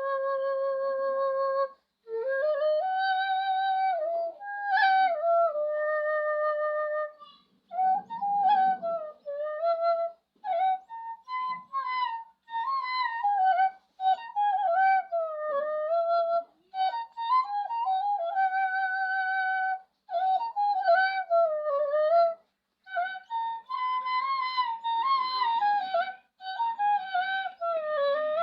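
Solo Bengali bamboo flute (bashi) playing a slow folk melody in short phrases separated by brief pauses. It has held notes with a wavering vibrato and notes that slide up and down in pitch.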